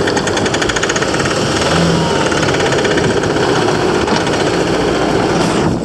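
Bobcat T770 skid steer loader's diesel engine running steadily and loud, with a fast even pulsing in the first second or so.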